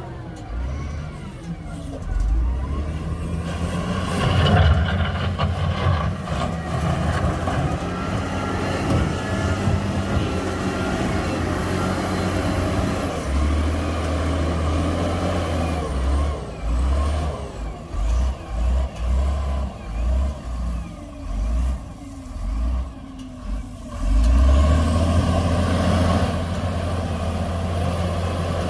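Heavy diesel engine of earthmoving machinery running under load, revving in a series of short surges in the second half.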